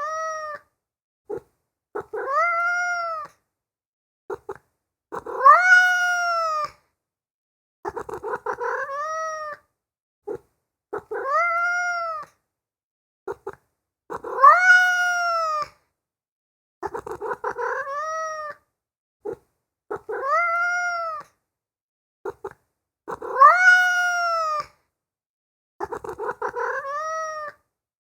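A domestic cat meowing over and over: drawn-out meows that rise and then fall in pitch, one every two to three seconds, with rougher, stuttering meows between them and a louder meow about every nine seconds. The same sequence of meows repeats identically, as a loop.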